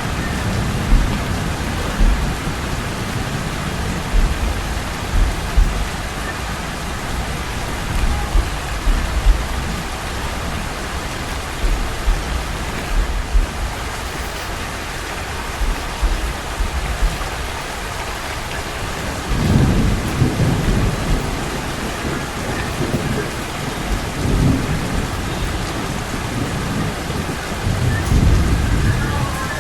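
Steady rain falling on the street. Low rumbles of thunder roll in about two-thirds of the way through and again near the end.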